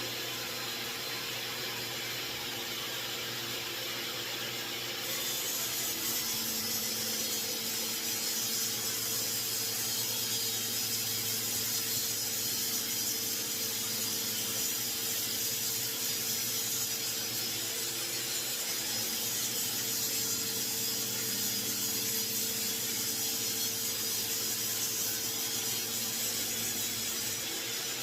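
Table saw running with a steady whine; about five seconds in the sound grows louder and brighter as the blade goes into red oak stock, and the rip cut carries on.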